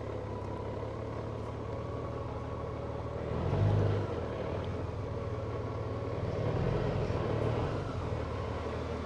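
Honda Gold Wing's flat-six engine running at low speed, with a brief swell in revs about three and a half seconds in and a gentler one around seven seconds.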